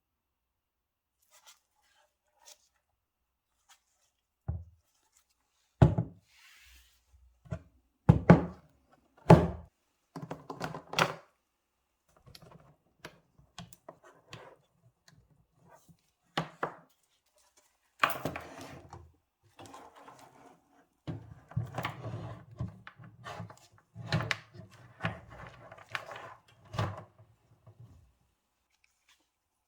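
Computer parts being handled and fitted into a small PC case: a string of sharp knocks and thunks, with clattering and rattling between them and a quick run of knocks near the end.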